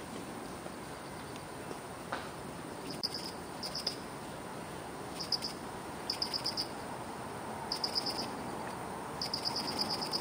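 Short bursts of high, rapid chirps on one pitch, each a quick train of pulses, repeating every second or so from about three seconds in, over a steady background hiss.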